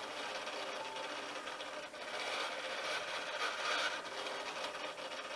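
Large sail-winch servo of a homemade ventilator driving its arm to squeeze and release a bag-valve-mask (Ambu bag): a continuous rasping whir that swells about three and a half seconds in as the bag is pressed. The ventilator is breathing continuously at a reduced tidal volume.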